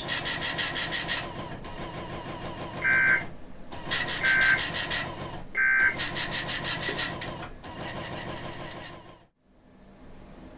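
Three short EAS end-of-message data bursts, the warbling two-tone digital 'NNNN' code, about a second and a half apart, signalling the end of the emergency alert message. They come amid stretches of loud, harsh, rasping static. Near the end the audio drops abruptly to a faint hiss.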